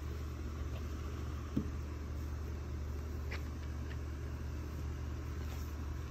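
Steady low hum with a couple of faint short knocks.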